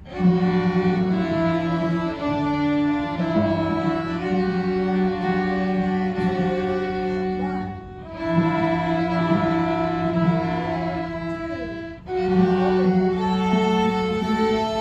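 Beginner string ensemble of violins, violas and cellos bowing a simple tune together in long held notes, with the teacher's violin playing along. The playing breaks off briefly between phrases about eight and twelve seconds in.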